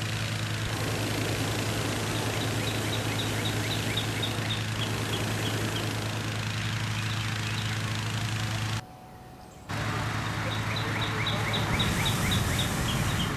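A motor running steadily with a low hum, and a songbird chirping in two quick runs of short high notes over it. The sound drops out briefly about nine seconds in.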